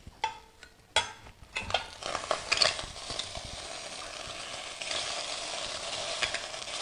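Bratwurst sizzling in a hot stainless steel pot as they are turned over with a metal spatula, which clicks and scrapes against the pot several times in the first couple of seconds. From about two seconds in the sizzle holds steady.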